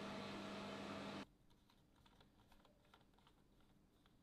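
A steady hum with a low tone cuts off suddenly about a second in, followed by faint small clicks and ticks of a precision screwdriver turning a small screw into a 3D-printed plastic fuel-tank mount.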